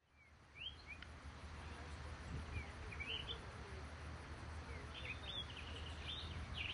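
Faint outdoor ambience with small birds chirping: scattered short, high chirps over a steady background hiss and low rumble, fading in at the start.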